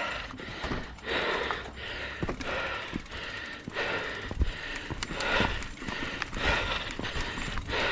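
Heavy, rough breathing of a mountain biker riding, a loud breath about once a second, over the low rumble and sharp rattles of the bike on a dirt trail.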